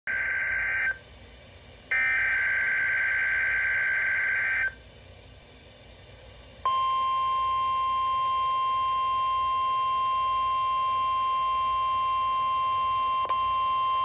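NOAA Weather Radio alert opening heard through a weather alert radio's speaker: two bursts of buzzy SAME header data tones, the first ending about a second in, then a short pause, and from about seven seconds in the long, steady warning alarm tone. It signals the start of a severe thunderstorm watch broadcast.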